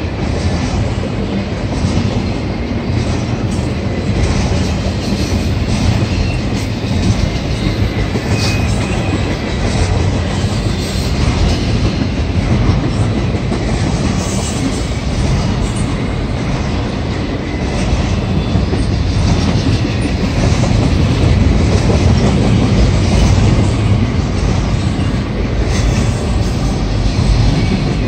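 Double-stack intermodal well cars of a freight train rolling past close by: a loud, steady noise of steel wheels running on the rails.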